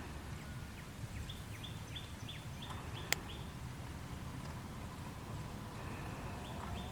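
A bird calling a quick run of about six short, high, repeated notes, with a few fainter notes near the end, over a steady low background rumble. A single sharp click sounds about three seconds in.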